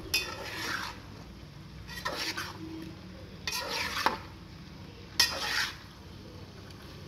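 A spoon stirring boiled spiral pasta into a spice masala in a metal pot: four scraping, rustling strokes about every one and a half seconds, with a couple of sharp clinks of the spoon against the pot.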